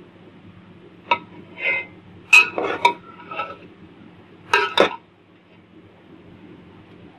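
Metal spoon clinking and scraping against the pot and plate as cooked pulao rice is served: a few scattered clinks and scrapes, then two sharp knocks in quick succession, after which it stops.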